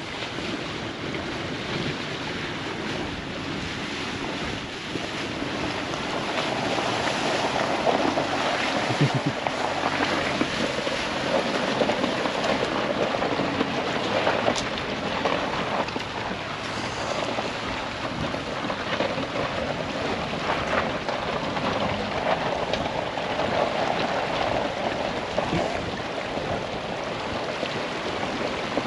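Floodwater rushing and splashing as a vehicle drives through it, with wind buffeting the microphone.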